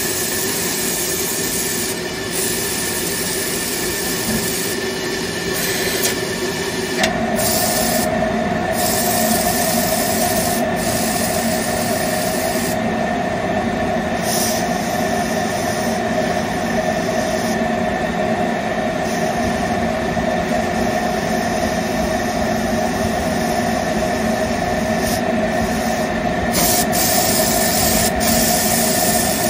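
Steam spotting gun jetting steam onto the silk, a steady hiss over the spotting machine's hum. About seven seconds in, a steady higher tone joins it and holds.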